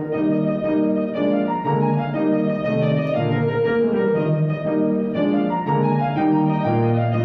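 Grand piano playing a passage of quick, short repeated chords in a piece for French horn and piano, with the horn silent for at least part of it.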